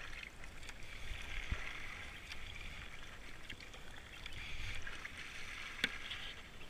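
Kayak paddle strokes and water hissing along a racing kayak's hull as it glides down a river, over a low uneven rumble, with a sharp click about six seconds in.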